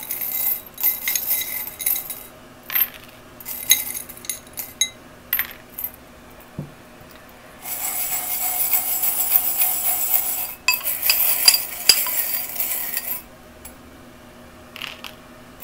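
Small metal charms clinking and rattling against each other and the sides of a glass bowl. Scattered clinks at first, then two long stretches of continuous jingling as the bowl is swirled and shaken, with a few light clicks near the end.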